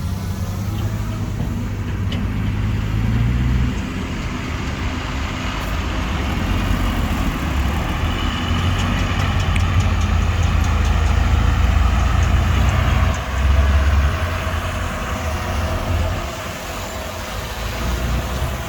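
Shantui DH17C2 bulldozer's diesel engine running hard under load, its loudness swelling and easing as it pushes dirt.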